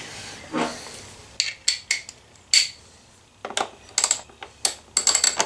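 Sharp metallic clicks and clinks of hand tools and small metal parts being handled, about a dozen in quick groups from about a second and a half in, thickest near the end.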